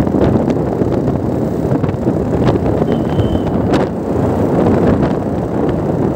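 Wind buffeting the microphone of a moving motorcycle, over the steady drone of its engine and tyres on the road, with a few brief bumps.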